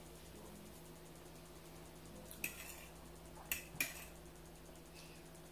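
Quiet room with a steady low electrical hum, broken by a few faint short clicks and taps about two and a half, three and a half and almost four seconds in.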